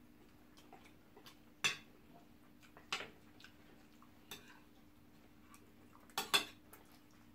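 Spoons clinking and scraping on ceramic plates during eating: a handful of short, sharp clicks a second or so apart, two in quick succession near the end, over a faint steady hum.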